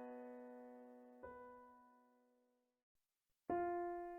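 Quiet piano-type keyboard chords, each left to ring and fade out. A brief stretch of near silence falls in the middle, then a new chord sounds about three and a half seconds in.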